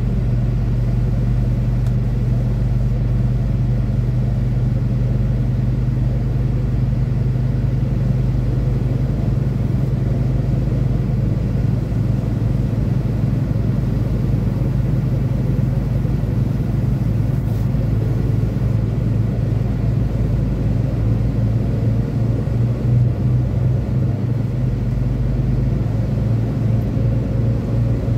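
Semi-truck's diesel engine running with a steady low drone; near the end the low hum pulses slightly.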